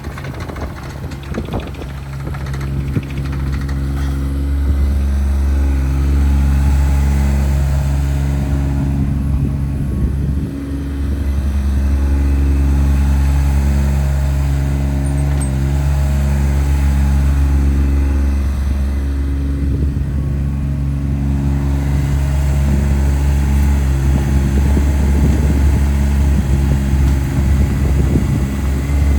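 Yanmar SV15VT mini excavator's diesel engine running, its pitch stepping up and down as the machine works. A few clicks and knocks in the first seconds, and the engine gets louder about three seconds in.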